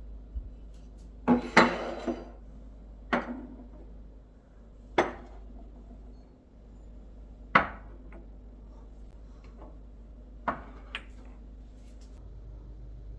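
Dishes and kitchenware being handled and set down: a scattered series of clinks and knocks, a few with a brief ring, the loudest cluster about a second and a half in.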